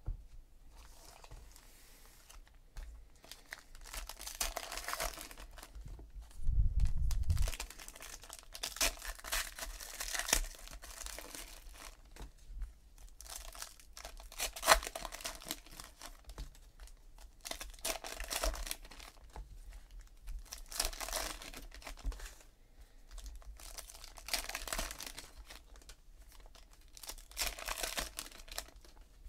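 Crinkly wrappers of 2017 Panini Classics football card packs being torn open and handled, in repeated bursts every few seconds, with a low thump about seven seconds in.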